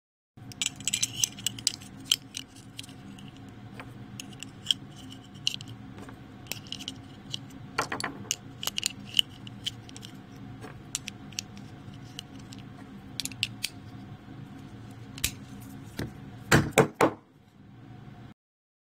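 Brass .30-06 cartridges clinking and clicking as they are pressed one by one into a steel M1 Garand en-bloc clip, with a quick run of louder metallic clicks near the end. A steady low hum runs underneath.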